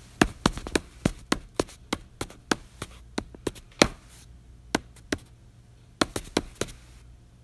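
A quick, uneven run of sharp taps, about three a second for the first four seconds, then two more, then a fast cluster of five near the end.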